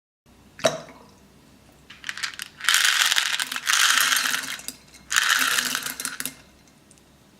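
Small hard beads pouring and rattling, in two long bursts, after a single sharp click under a second in.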